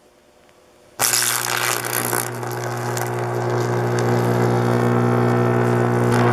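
Homemade transformer-powered arc furnace striking its arc about a second in, then running with a steady, deep electric buzz and crackling, sizzling noise as the arc burns at full power.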